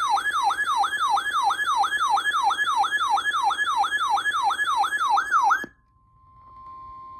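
Weather alert radio's siren alarm: a loud, fast wail of quick falling sweeps, about three a second, that cuts off suddenly after about five and a half seconds. After a short gap, a quieter steady tone fades in and holds one pitch near the end: the 1050 Hz warning alarm tone of NOAA Weather Radio that precedes a warning.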